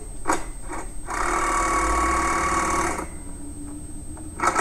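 Cordless impact driver running for about two seconds, hammering a bolt tight on a trailer shock-absorber mount.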